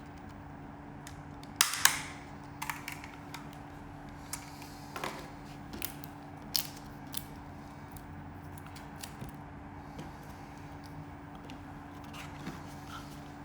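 Hands handling the plastic parts and packaging of a drone kit: two sharp snaps close together near two seconds in, then scattered lighter clicks and a rustle, fading to only a few taps later, over a steady low electrical hum.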